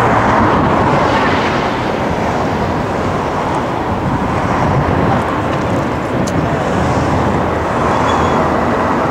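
Airbus A400M's four Europrop TP400 turboprop engines running loud and steady on the landing roll, with the eight-bladed propellers at high power blowing dust off the runway.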